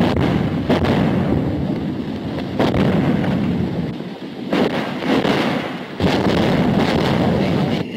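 Artillery shells exploding in a heavy barrage: about five sudden blasts over a continuous low rumble, on an old film soundtrack.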